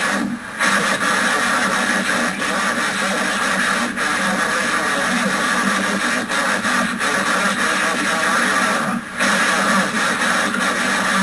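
Loud, steady garbled noise from a failed Emergency Alert System relay breaking into a TV channel's audio. It cuts out briefly just after the start and again near the end.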